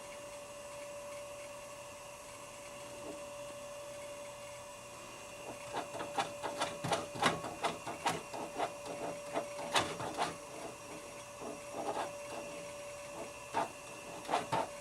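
Macintosh Portable's hard drive spinning with a steady whine. From about five seconds in come irregular rapid clicks, a few a second, thinning out near the end.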